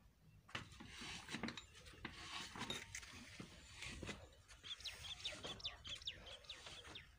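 Scattered light knocks and clinks of hand work on the well's pump and engine mounting, with a bird chirping a quick run of short notes a little past the middle.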